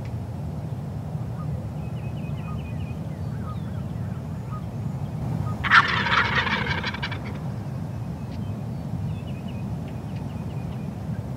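Wild turkey gobbler gobbling once, a loud rattling call of about a second and a half, roughly six seconds in. This is a tom's breeding-season display call.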